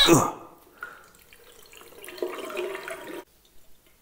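Bathroom basin tap running a thin stream of water into a small plastic toy water pistol to fill it, from about two seconds in until just after three. It opens with a short, loud sound that slides down in pitch.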